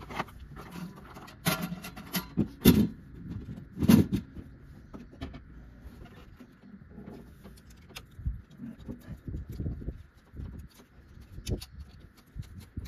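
Hands working on parts around the starter in a truck's engine bay: scattered clicks and knocks, the loudest in the first four seconds, then lighter ticks and rustling.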